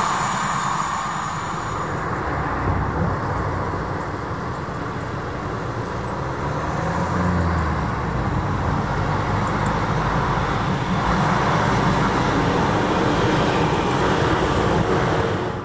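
CP 3400-series electric multiple unit running along the line and passing close beneath: a steady rumble that grows louder over the second half.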